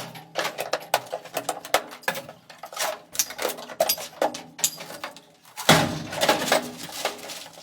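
Metal parts and tools clanking and knocking against each other, in irregular strikes with brief metallic ringing. A denser, louder run of clanks comes about six seconds in.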